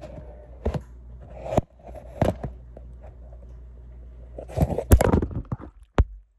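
Handling noise: sharp clicks and knocks from a handheld phone being moved about, with a plastic zip-top bag crinkling in a dense burst about five seconds in.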